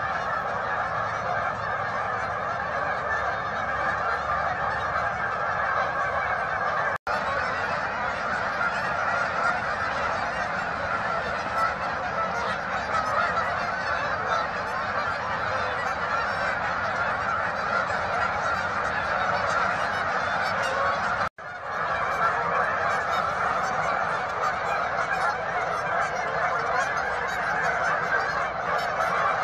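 A large flock of Canada geese honking continuously, hundreds of overlapping calls merging into a dense din. The sound cuts out for an instant twice, once about a quarter of the way in and again about two-thirds of the way through.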